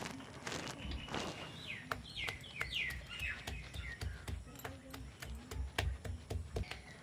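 Stone pestle of a sil-batta pounding karonda berries and green chillies on a flat grinding stone, crushing them into chutney. Repeated sharp knocks over dull thuds, several a second, starting about two seconds in. Birds chirp a few times around the same point.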